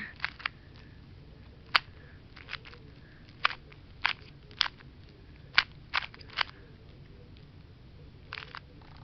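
A plastic 2x2 Rubik's cube being turned, its layers giving short sharp clicks at irregular intervals, about a dozen in all.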